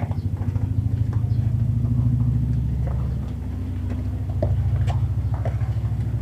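A low, steady engine-like hum with a fast pulse, with a few short clicks of footsteps on the path.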